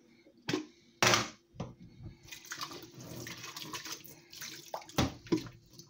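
Kitchen tap running water into a plastic jug in a stainless steel sink for about two seconds, near the middle. Knocks and clunks of handling in the steel sink come before and after, the loudest about a second in.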